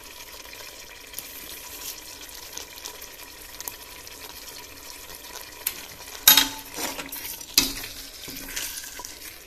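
Chicken and masala frying in an aluminium pressure cooker with a steady sizzle. From about six seconds in, a metal spoon clinks and scrapes against the pot a few times as it is stirred.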